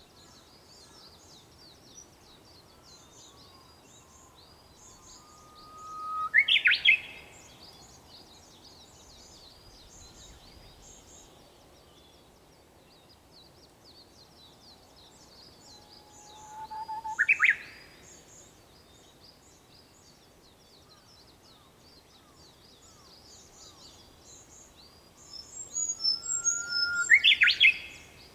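Japanese bush warbler (uguisu) singing its hoo-hokekyo song three times, about ten seconds apart: each a held low whistle breaking into a quick rising flourish. A steady chorus of thin, high chirps from other small birds runs beneath.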